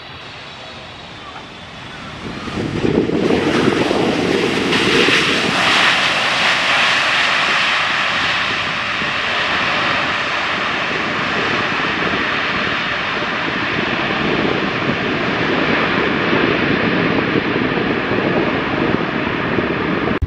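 Jet engines of a landing widebody airliner, a Garuda Indonesia Boeing 777, swelling sharply to a loud, sustained roar about two and a half seconds in as reverse thrust is applied during the rollout with spoilers up.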